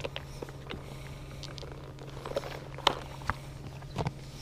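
Light plastic clicks and small rattles as a clear plastic tackle box full of lead sinkers is handled and snapped open, the sharpest click about three seconds in, over a steady low hum.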